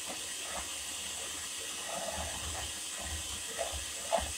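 Electric hand mixer running steadily, its beaters whirring through a bowl of batter to break up a stubborn lump of butter. A couple of brief knocks near the end.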